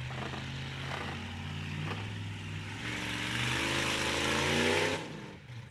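Car engine running under load as the vehicle strains on a tow rope in wet grass. Partway through it revs up, rising in pitch, with the wheels spinning for lack of traction, then drops back off sharply near the end.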